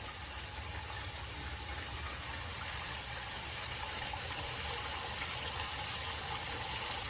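Steady rush of falling, splashing water from a rain-curtain waterfall fountain, with a low hum beneath.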